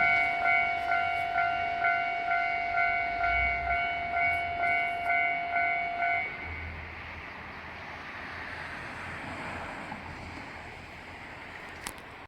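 Japanese railway level-crossing alarm bell (the "kan-kan" crossing signal) ringing with an even pulse a little over twice a second, cutting off about six seconds in. A fainter steady rushing noise carries on after it.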